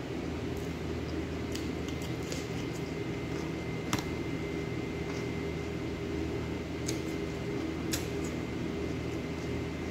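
A steady mechanical hum with several fixed low tones, with about six short clicks and light squishy eating sounds scattered through it as a person eats with her fingers from a plate.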